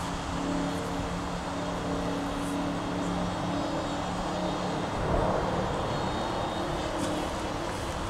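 A distant engine drones steadily under outdoor background noise, with a few faint held pitches.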